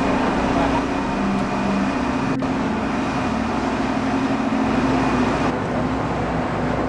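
Busy city street: steady traffic noise with a low, even hum, and a single sharp click about two and a half seconds in.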